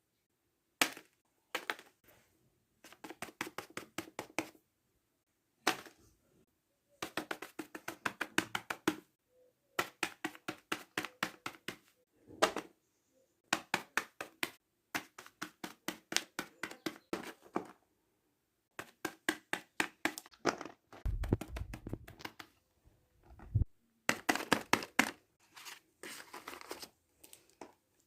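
Fidget toy clicking in quick runs of several clicks a second, broken by short pauses. About three-quarters of the way through, a low rumble lasts for about two seconds.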